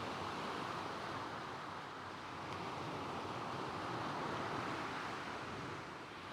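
Small waves breaking gently and washing back over a shingle beach, in slow swells, with soft coastal wind.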